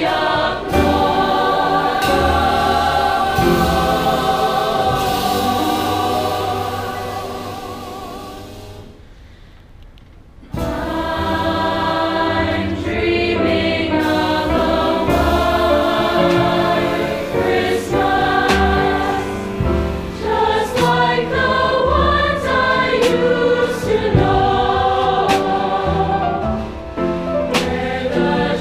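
School choir singing. The sound dies away about eight seconds in, and after a brief near-pause the singing starts again abruptly.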